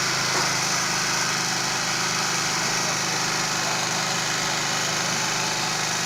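Small petrol generator engine running steadily on LPG cooking gas, fed through a dual-fuel gas carburetor.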